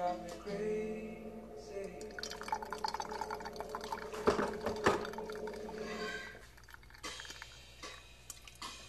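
Brewed coffee trickling from a V60 dripper into a glass server, a fine rapid patter with two sharp knocks about four and five seconds in. Background music sounds at the start.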